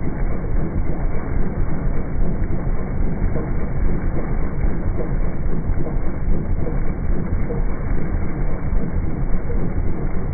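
Engine running, its sound slowed down by slow-motion playback into a deep, steady, low rumble.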